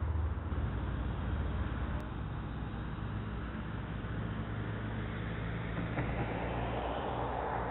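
Steady low rumble and hiss of distant road traffic, as heard through a security camera's microphone, with a single sharp click about two seconds in.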